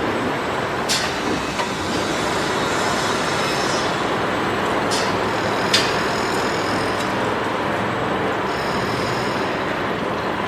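Construction site ambience: a steady din of heavy machinery and traffic, broken by a few sharp metallic clanks, the loudest about halfway through.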